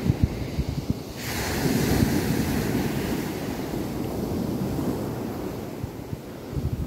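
Wind buffeting the microphone as a steady low rumble, with a few knocks at the start. About a second in the sound changes abruptly and a steady hiss joins it.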